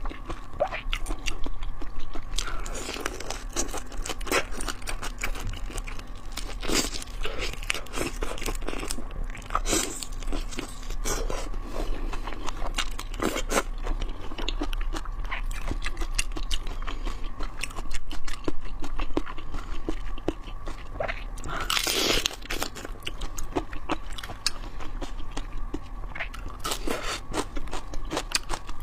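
Close-miked eating: irregular crunches, bites and wet chewing of raw shrimp, many small crunches scattered throughout.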